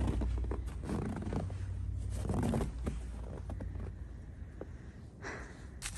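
Footsteps and scuffing as a person moves through a house, with scattered knocks and a short scrape near the end, over a low rumble on the microphone that fades about three seconds in.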